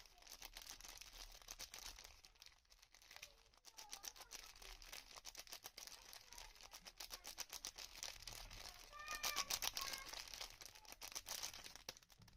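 Soap packaging being unwrapped by hand: dense, quiet crinkling and rustling, with a few short high chirps about nine to ten seconds in.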